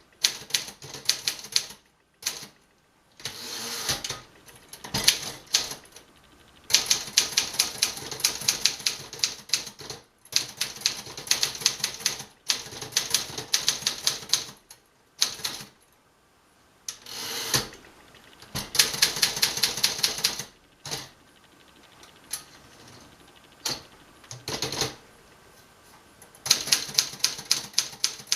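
1956 Remington-Rand Letter-Riter portable manual typewriter being typed on: runs of quick, sharp key strikes lasting a few seconds each, separated by short pauses, with a few brief smoother sweeps between runs.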